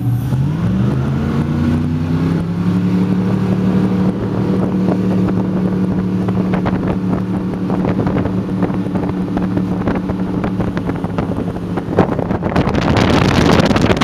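Motorboat engine rising in pitch as the boat speeds up in the first couple of seconds, then running steadily at speed. Near the end a loud rush of wind and water grows and covers the engine.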